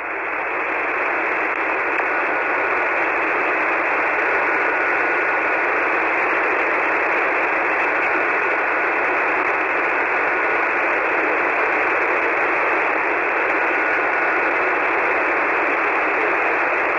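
Steady radio static from a ham transceiver's receiver on a 40-meter single-sideband channel with no station transmitting: an even hiss cut off above and below by the narrow voice passband. It swells in over the first second, and a faint steady whistle comes and goes three times.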